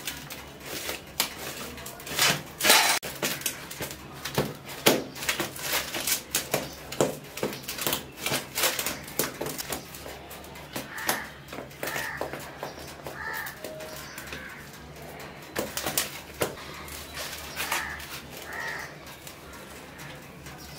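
Hands pressing and patting a ball of dough flat into a metal baking tray, giving irregular taps and knocks. The loudest knocks come about two to three seconds in.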